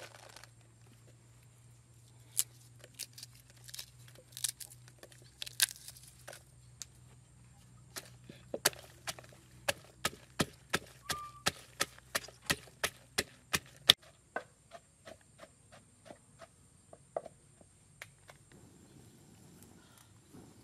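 Wooden pestle pounding red chillies and garlic in a wooden mortar. After a few scattered knocks, it settles about eight seconds in into a steady beat of about two strikes a second, with the hardest strike around fourteen seconds. The strikes then grow lighter and stop a few seconds before the end.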